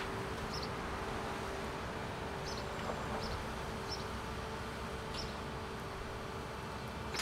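Steady hiss of a garden hose spraying water onto a demolition rubble pile, over a low steady hum, with short high chirps every second or so.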